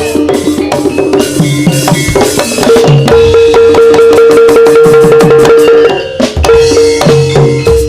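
Live Javanese turonggo (jaranan) horse-dance music: drums and percussion playing a fast beat, with a long held note for about three seconds in the middle and a brief break about six seconds in before the beat resumes.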